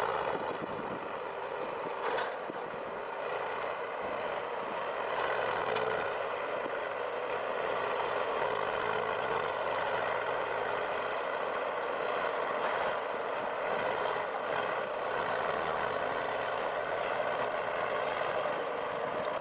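A machine motor running steadily at high speed with a thin high-pitched whine that wavers slightly in pitch.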